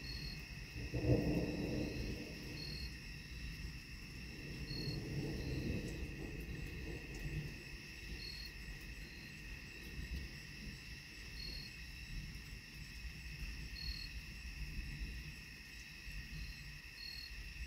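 Night insects chirring steadily in several high pitches, with short high chirps every second or two. A low rumble swells about a second in and again around five seconds.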